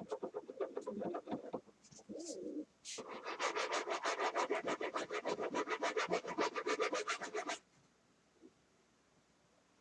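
Model locomotive running on the track: scraping and irregular clicks, then a fast, even clicking of about seven ticks a second over a running whir that cuts off suddenly near the end.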